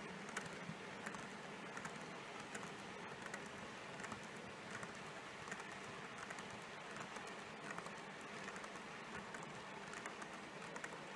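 H0 scale model freight train of covered goods wagons rolling past on its track: a steady low rolling hum with many small, irregular clicks from the wheels on the rails.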